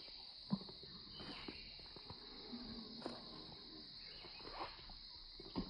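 Forest insects droning in a steady high-pitched chorus, with a few scattered soft knocks and rustles; the loudest is a sharp click about half a second in.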